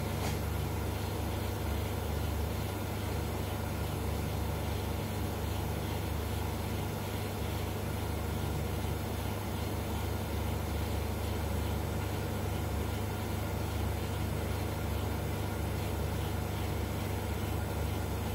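Steady electrical hum with hiss from a high-voltage flyback transformer driven by an NE555/MOSFET circuit, powering a gas discharge in a neon-argon tube.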